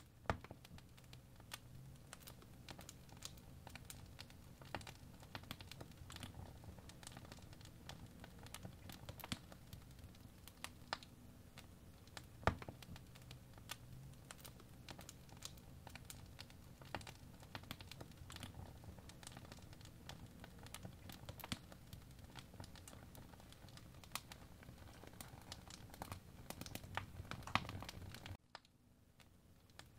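Tip of a first-generation Apple Pencil tapping and scratching on the glass screen of a 2017 iPad Pro 10.5 while sketching. The quiet, irregular light clicks sit over a faint low hum and drop away shortly before the end.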